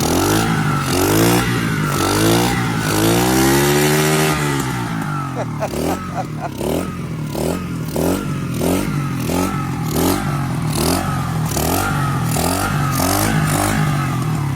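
Kayo 70cc dirt bike engine running on a freshly cleaned carburetor, revved in rising and falling sweeps: one long rev about three seconds in, then quick throttle blips about twice a second.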